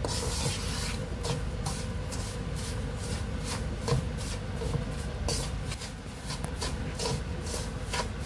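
Wooden spatula scraping and stirring semolina and flour roasting in ghee in a nonstick wok, in a steady run of short strokes about two a second. The mixture is being dry-roasted to a golden brown.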